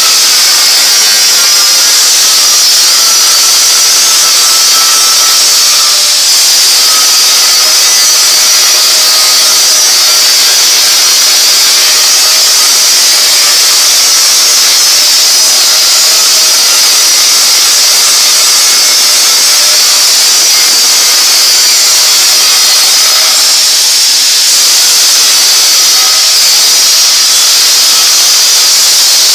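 Oxy-fuel gas cutting torch hissing steadily as it cuts through a thick steel pipe, with fainter wavering tones underneath.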